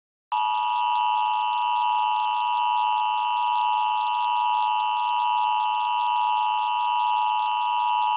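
Emergency Alert System attention tone: a steady, unwavering electronic tone held for about eight seconds, sounding right after the SAME header data bursts and before the alert message.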